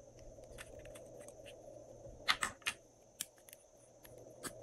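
Small plastic glitter-glue pens being handled and twisted open: a quick cluster of three sharp clicks about halfway through, then two more single clicks, over a faint steady high hiss.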